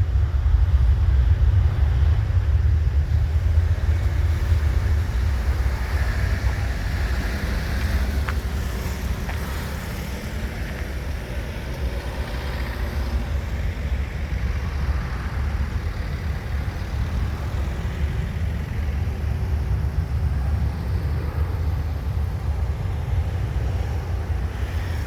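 Jet airliner engines rumbling at the airfield, a steady low rumble with a faint higher whine, easing off over the first ten seconds and then holding steady.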